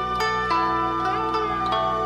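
Instrumental music of a plucked string instrument playing a slow melody, one note after another, each ringing on under the next.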